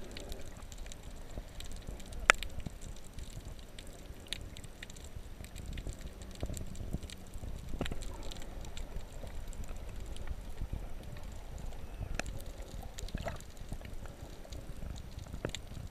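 Underwater ambience heard through a submerged camera: a steady low rumble of moving water with a few scattered sharp clicks, the loudest about two seconds in.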